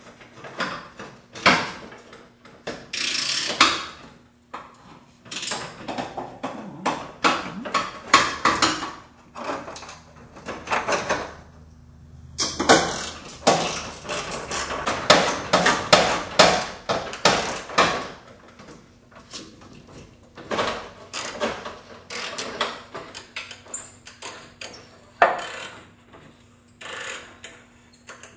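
Metal hand tools working a rusted bolt that has just been heated: a wrench and ratchet clinking, scraping and clicking in irregular bursts, busiest a little past halfway.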